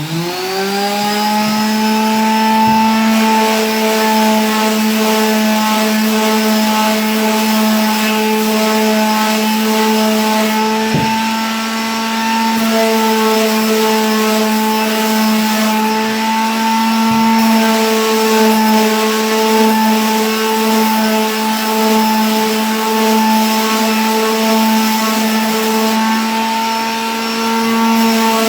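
Electric sander spinning up to speed in the first second, then running steadily with a constant hum as it sands a primed canvas smooth.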